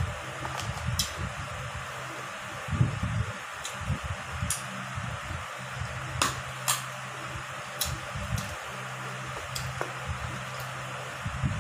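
Electric fan running with a steady hum and whir. Over it come sharp, crisp clicks, several seconds apart, of teeth biting into and chewing a firm mango.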